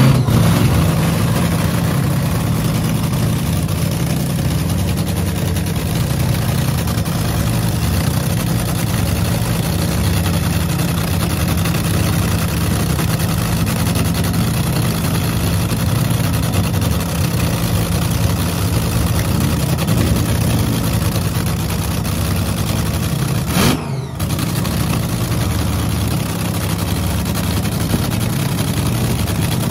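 Ford 427 SOHC 'Cammer' V8 in a dragster running at a steady idle, with one brief dip in level about three-quarters of the way through.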